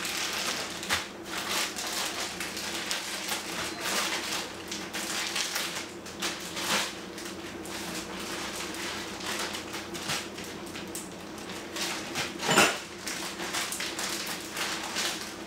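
Zip-top plastic food bags crinkling and rustling in irregular bursts as they are sealed and handled, with one louder crinkle near the end.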